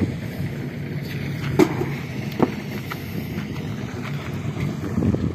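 Steady low rumble of a running engine, with wind on the microphone and two sharp knocks about one and a half and two and a half seconds in.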